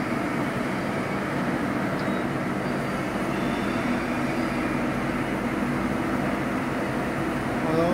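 Steady, unchanging machine hum and hiss from a powered-up 220-ton hydraulic CNC press brake, its hydraulic power unit running at idle.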